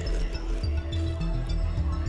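Background music with a deep, shifting bass line.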